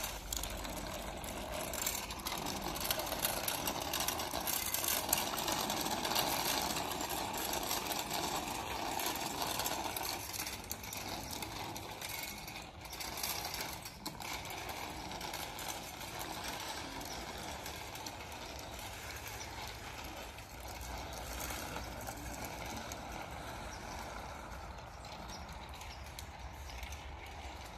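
Children's bicycles with training wheels rolling over wet, slushy asphalt: a steady rattling hiss of tyres and small wheels that grows fainter after about ten seconds.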